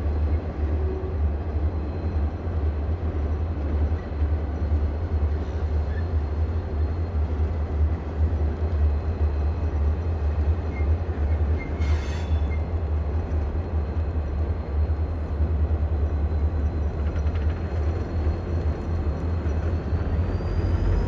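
Train running past with a steady low rumble, and one brief sharp click about twelve seconds in.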